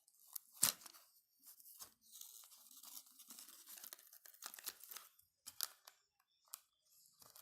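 A small microphone's packaging being opened by hand: faint tearing and crinkling of the wrapping, with a few sharp clicks and snaps.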